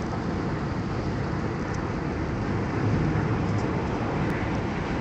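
Steady road and engine noise heard inside a car driving at highway speed, a constant low rumble with hiss.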